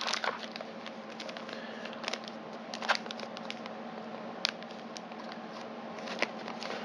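Clear plastic bag and cardboard packaging rustling and crinkling as items are lifted out of a box, with scattered sharp clicks, a few louder ones standing out. A faint steady hum runs underneath.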